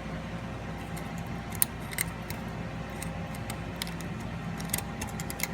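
A few sharp metallic clicks and scrapes as a spiral lock retaining ring is worked back into its groove in a rebuildable ball joint housing, over a steady low hum.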